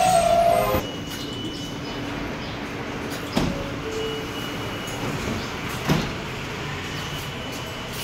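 An R143 subway train coming to a stop: its falling electric motor whine cuts off within the first second. The standing train then hums steadily, with two sharp knocks, about three and a half and six seconds in.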